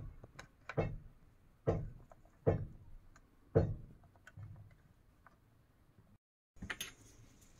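Plastic snap latches on a Lexus LX470 instrument cluster being pried and unclipped by hand. A series of sharp plastic clicks and knocks, four louder ones in the first four seconds, then fainter clicking.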